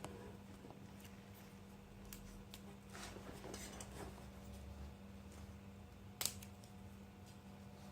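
Tape being handled and wrapped around wires: soft rustling and a few small clicks, with one sharp click about six seconds in, over a faint steady hum.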